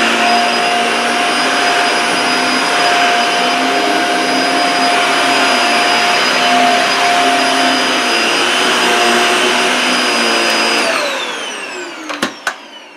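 Dyson Small Ball Multifloor upright vacuum cleaner running on carpet: a steady motor whine over rushing air. About eleven seconds in it is switched off and the motor winds down with a falling whine, and two sharp clicks follow near the end.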